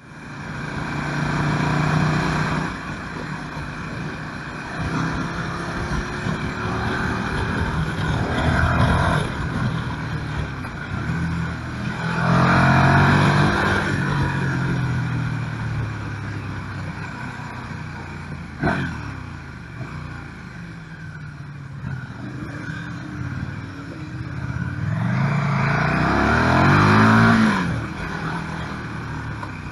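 KTM 1290 Super Duke R's V-twin engine heard onboard, with a steady rush of wind. It surges several times as the bike accelerates hard, its pitch rising and falling, and between surges it runs lighter. A single sharp click comes about two-thirds of the way through.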